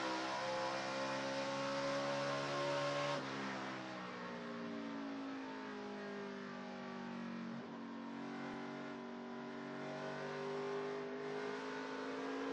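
NASCAR Camping World Truck Series race truck's V8 heard onboard: the engine note climbs steadily at full throttle, drops off suddenly about three seconds in as the throttle is lifted for the corner, dips again near the middle, then climbs back up as the power comes back on.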